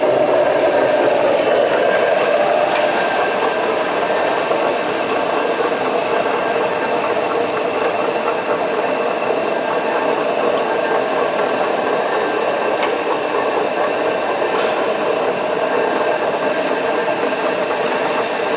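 Jones & Shipman 1310 universal cylindrical grinder running: a steady mechanical hum and whine, with a few faint ticks.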